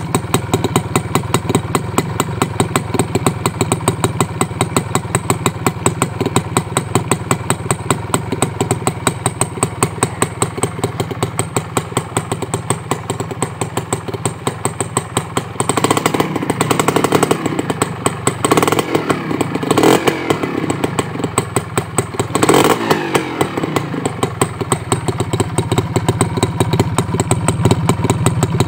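Honda H100S CDI's small two-stroke single-cylinder engine idling steadily, its exhaust note heard close at the chrome silencer. Between about 16 and 23 seconds the throttle is blipped a few times, and the revs rise and fall back to idle.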